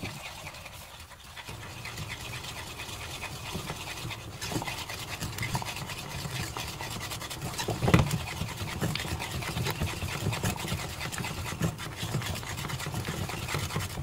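Wire whisk beating thick glutinous rice flour paste in a nonstick frying pan: fast, continuous scraping and slapping strokes, with a louder knock against the pan about eight seconds in.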